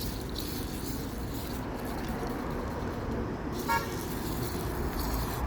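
Steady hiss of light rain, with a short high toot, such as a distant car horn, about three and three-quarter seconds in.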